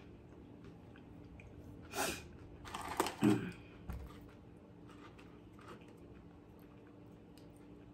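Plastic spoon scooping baked beans in a foam cup, with a few clicks and rustles; the loudest handling noises come about two and three seconds in, then only faint ticks.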